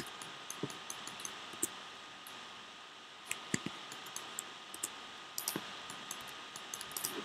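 Irregular soft clicks of a computer mouse and keyboard, with a few duller key knocks, over a steady faint hiss.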